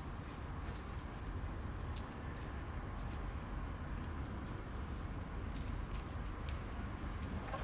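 Light, scattered small clicks and rustles as hands handle a cat and fasten its leather collar with a small metal buckle, over a steady low hum.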